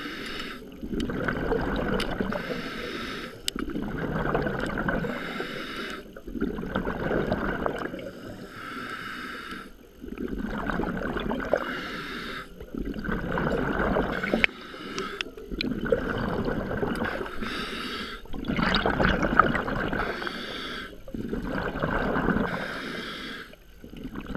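Scuba regulator breathing underwater: a hissing inhale through the regulator alternating with a bubbling rush of exhaled air, about one breath every three seconds.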